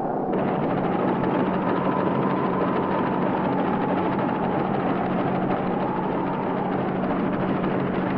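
Combine harvester running steadily: an even mechanical drone with a low hum and a whine that wavers slightly in pitch, setting in just after the start.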